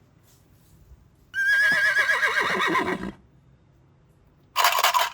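A horse whinnying once for about two seconds, starting high and wavering, then falling in pitch. A shorter high-pitched burst follows near the end.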